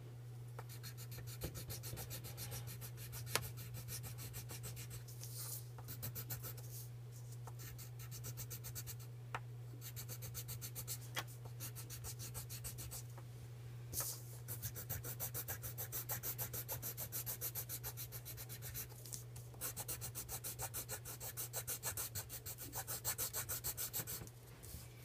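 Pencil crayon scratching on paper in quick back-and-forth shading strokes, growing stronger and more regular from about halfway through. A steady low hum runs underneath.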